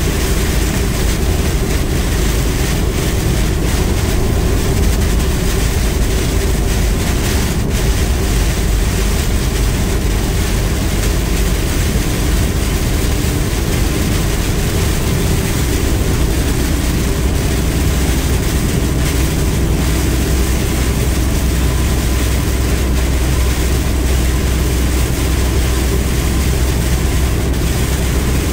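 Steady noise inside a vehicle driving through heavy rain: a deep rumble of engine and tyres on the wet highway under an even hiss of rain and road spray.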